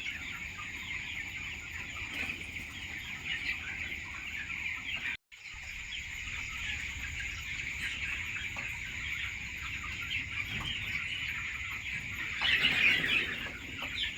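A flock of poultry-farm chickens calling continuously, a dense chatter of clucks and cheeps, with a louder flurry of calls near the end. The sound cuts out for a split second about five seconds in.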